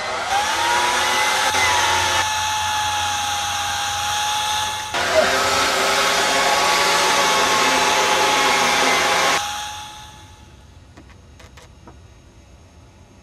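A power tool running steadily with a held whine, cutting off about nine and a half seconds in; faint ticks and quiet outdoor background follow.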